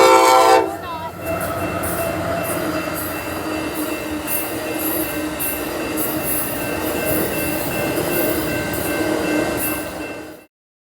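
Train horn giving one short, loud chord-like blast, then the train passing with a steady rumbling hiss, a few held tones and a faint regular ticking about every half second or so. The sound cuts off suddenly near the end.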